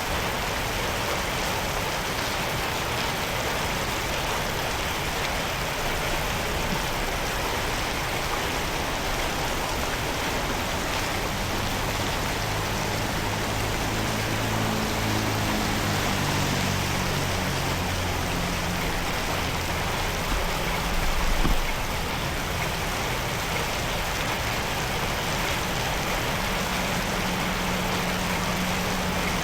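Steady rush of floodwater running into a cleared road drain. A motor vehicle's engine hum comes and goes midway, with a brief louder knock at its end, and another engine hum starts near the end.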